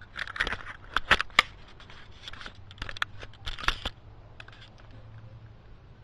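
A die being shaken and rolled: a run of sharp clicks and rattles over about four seconds, loudest about a second in, then quiet.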